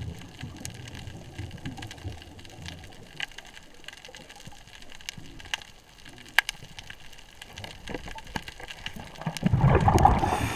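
Underwater: scattered sharp clicks and crackles over a faint low rumble, then a loud bubbling rush from about nine and a half seconds in, typical of a scuba diver exhaling through a regulator.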